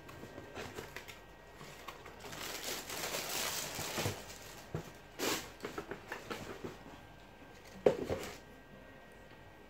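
Tissue paper rustling and crinkling as a pair of shoes is handled and lifted out of a cardboard shoebox, with scattered light handling knocks and one sharp knock about eight seconds in.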